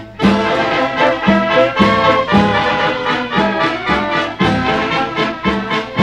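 Brass band playing, with trombones prominent, on a steady beat of about two pulses a second.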